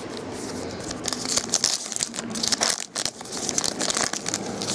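A 2012 Upper Deck Goodwin Champions trading card pack being torn open by hand, its wrapper crinkling in quick irregular crackles as the cards are pulled out.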